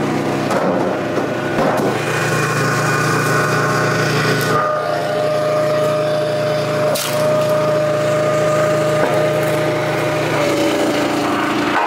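A Wolfe Ridge 35 HO hydraulic log splitter splitting ash rounds. Its gas engine runs steadily, and a higher whine holds for several seconds in the middle while the ram drives a round through the wedge. The wood cracks and splinters, with one sharp crack about seven seconds in.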